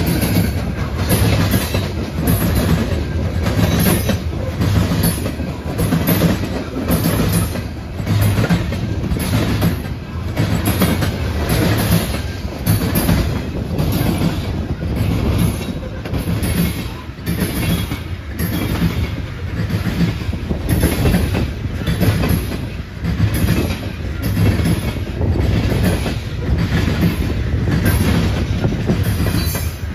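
CSX freight train's cars rolling past at close range, with a steady clickety-clack of wheels over the rail joints repeating a little more than once a second.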